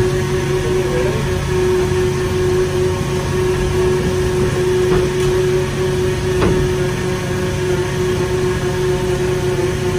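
Fishing machinery running steadily, a constant droning hum with a held tone over it, and a single short knock partway through.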